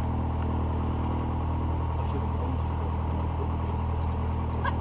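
Light aircraft's single propeller engine running steadily at idle, heard from inside the cabin as an even low drone.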